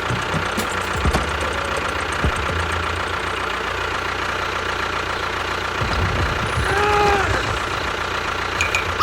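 Engine running steadily with a fast, knocking low rhythm, as from a small tractor engine. A brief arching tone sounds about seven seconds in.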